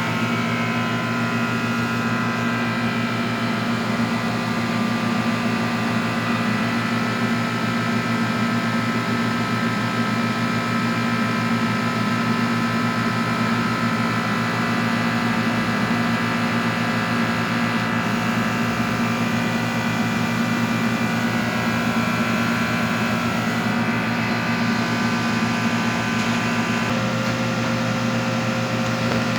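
High vacuum coating machine running: a steady electrical hum with several steady higher whining tones over it, some of them drifting slightly in pitch, and a small shift in the tones near the end.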